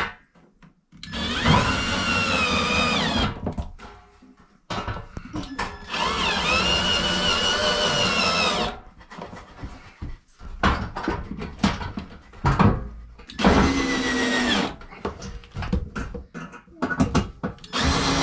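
Cordless drill driving screws through a sheet-metal heat shield into a wooden wall, in four runs of one to three seconds each, the last starting near the end. The motor whine rises as it spins up, holds steady, and drops as it stops. Clicks and knocks of handling fall between the runs.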